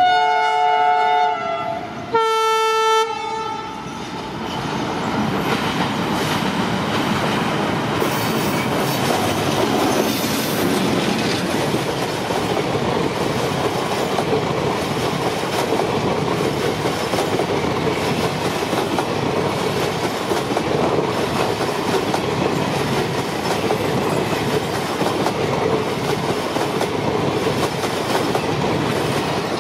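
Two long blasts of a diesel locomotive's multi-tone horn, the second shorter. The steady rumble and clatter of the train's wheels then follows as it runs across a steel girder bridge.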